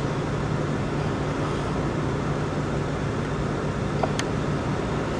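Steady outdoor traffic noise: a low engine hum under an even rush, with two sharp clicks about a second apart near the end.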